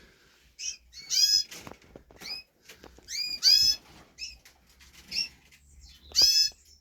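Zebra finches calling: a series of short, nasal, arched calls, the loudest about a second in, around three and a half seconds in, and near the end, with fainter calls between them.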